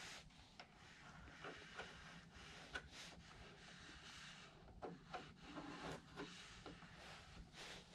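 Faint scratching of a pencil tracing round a washer on the fabric covering of an aircraft wing, with a few light ticks.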